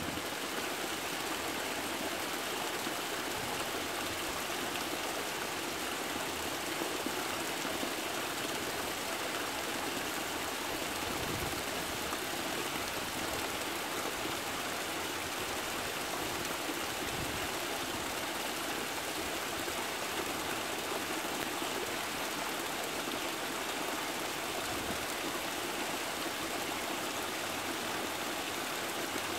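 A small waterfall splashing down a series of stone ledges into a stream: a steady, even rush of water.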